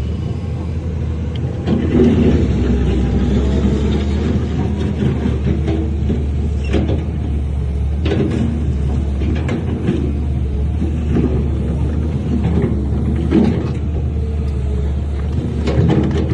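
Diesel engine of heavy earthmoving equipment running steadily under load, getting louder about two seconds in, with scattered sharp knocks now and then.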